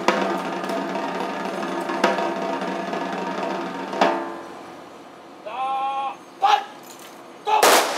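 Ceremonial snare drum roll with sharp accented strikes about every two seconds. It fades, then a drill command is shouted and a loud rifle volley of a gun salute cracks out near the end.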